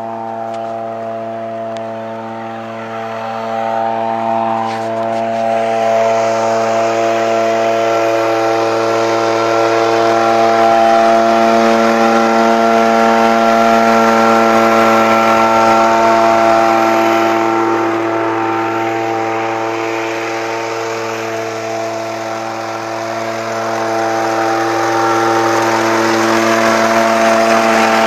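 Small engine of a Sanyang-type two-person tea plucking machine running steadily while the machine is worked along the tops of tea bushes. It swells a few seconds in, eases slightly past the middle, and picks up again near the end.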